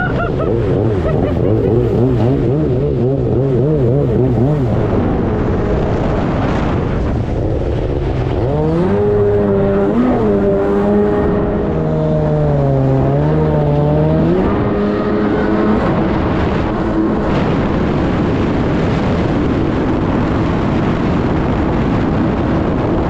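Kawasaki 550SX stand-up jet ski's two-stroke engine running under throttle, its pitch wobbling rapidly for the first few seconds, then climbing again about nine seconds in and wavering until about sixteen seconds, over a steady rushing noise.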